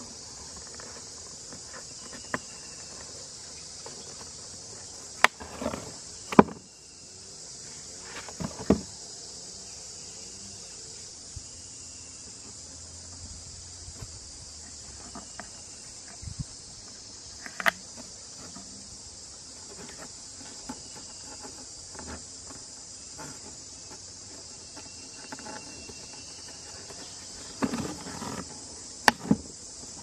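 Insects droning steadily at a high pitch, with scattered sharp taps and knocks from the cardboard box and its flap being handled.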